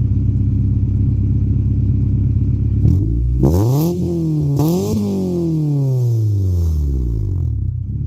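Honda Prelude's four-cylinder engine idling, then revved up twice in quick succession about three seconds in, its pitch falling slowly back to a steady idle.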